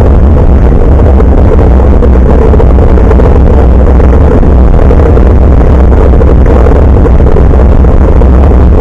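Loud, steady wind and road rumble on the microphone of a handlebar-mounted action camera while cycling, heaviest in the low end.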